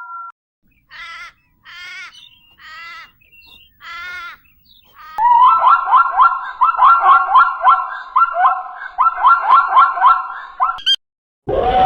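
An animal calling: four short wavering calls about a second apart, then a fast run of repeated chirping calls for about five seconds.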